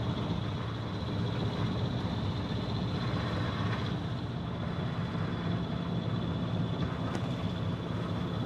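Small sailboat's inboard engine running steadily under way, a constant low hum with a thin, steady high whine above it.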